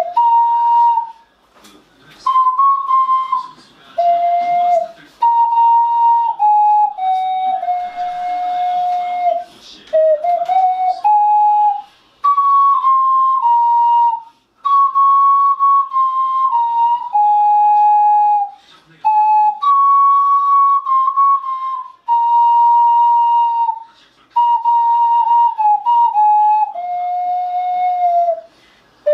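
A small handheld wind instrument playing a slow solo melody from sheet music, one clear, pure note at a time, in short phrases broken by brief pauses for breath.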